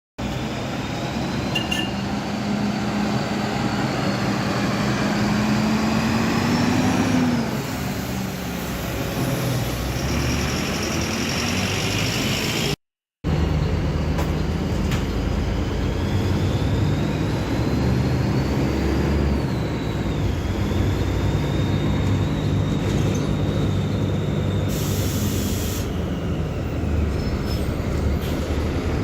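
Diesel engine of a Mercedes-Benz OF-1724L bus chassis running under way, its pitch climbing as the bus accelerates and then dropping about seven seconds in, as at a gear change, with a high whine that rises and falls. Short hisses come twice, about ten and twenty-five seconds in, and the sound cuts out briefly about thirteen seconds in.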